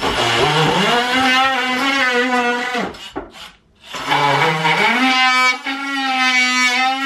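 Cordless DeWalt oscillating multi-tool cutting into a wooden cabinet frame: a steady, high buzz that spins up in pitch over about a second. The buzz stops just under three seconds in, then starts again about a second later and spins up once more.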